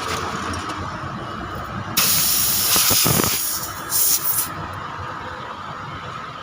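Compressed air hissing from an air line at a tubeless tyre: one long blast about two seconds in, then two short bursts.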